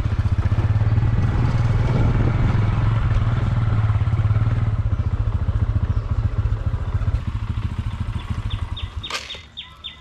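Motorcycle engine running as the bike is ridden along, easing off after about seven seconds and cutting out about nine seconds in with a clack. Birds chirping near the end.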